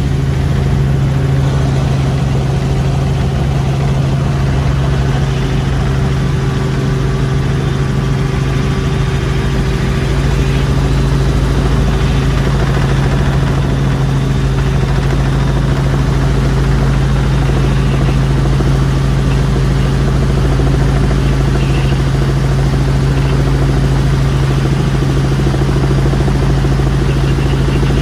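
Helicopter engine and rotor noise heard inside the cabin in flight: a loud, steady drone with a strong low hum.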